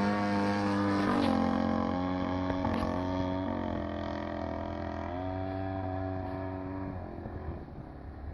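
A ZDZ 60 RV single-cylinder gas engine and propeller on a giant-scale RC aerobatic plane, heard droning in flight at a distance. The pitch shifts in steps several times as the throttle changes, and the sound fades a little near the end.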